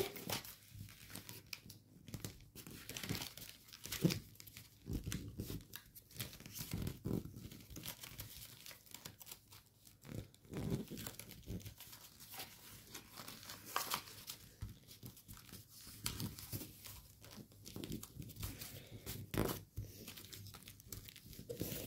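Gold foil origami paper crinkling and crackling as it is creased and folded by hand, in short irregular bursts.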